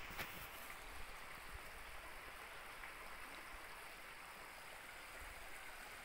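Shallow, rocky stream flowing, a steady faint rush of water.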